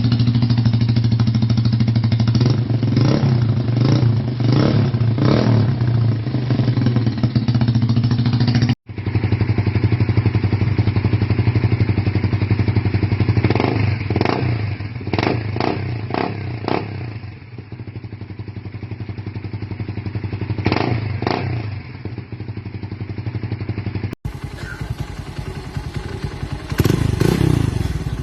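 Motorcycle with a Daeng / Cha / Apido replica exhaust pipe idling, with repeated short throttle blips. The exhaust note rises and falls with each blip.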